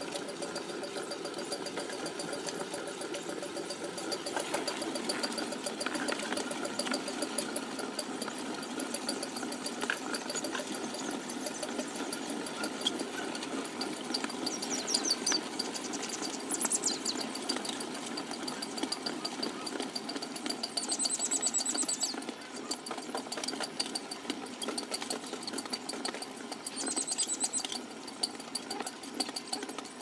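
Potter's wheel spinning with a steady, rapid mechanical rattle while wet clay is thrown on it. A few short spells of high chirping come and go over it.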